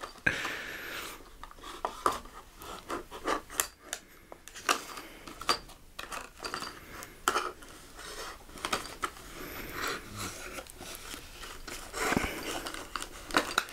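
Folding knife blade sawing and scraping through a clear plastic blister pack, with the plastic crackling and clicking irregularly as it is cut and flexed.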